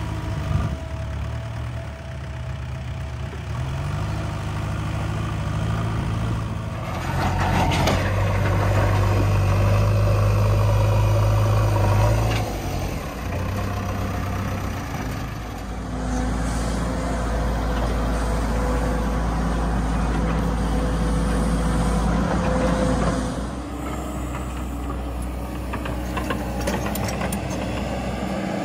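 Diesel engines of a JCB 3DX backhoe loader and a JCB tracked excavator running under load while digging and moving soil. The engine note and loudness change abruptly several times, rising to a louder, higher run at about seven seconds in.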